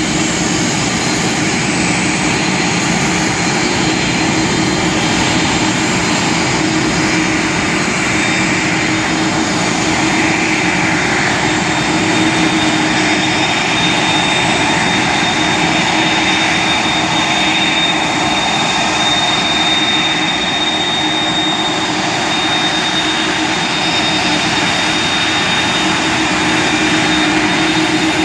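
McDonnell Douglas MD-11's three turbofan engines running at taxi power, a steady jet noise with a thin high whine that holds level.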